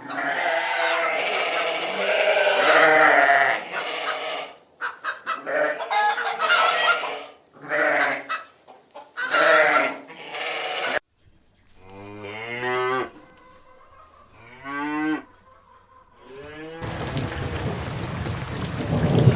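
Farmyard animal calls: chickens clucking and crowing over one another, then several separate wavering livestock calls. A steady rain-like noise starts near the end.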